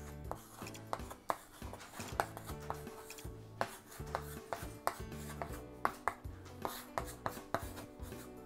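Chalk tapping and scratching on a small framed chalkboard as words are written, an irregular run of sharp little taps. Background music with a stepping bass line runs underneath.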